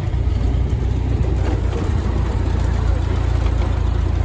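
Open-top antique car's engine running as the car drives along, heard from the seat, with a steady low rumble.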